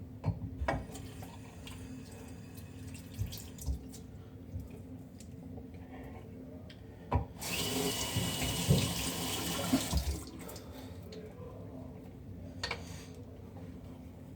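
Sink tap running for about three seconds about halfway through, then shut off. A few light knocks and clicks come before it.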